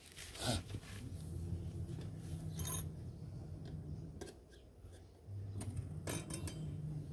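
A few scattered light clicks and knocks as a mountain bike's rear wheel and tyre are handled, over a low steady hum.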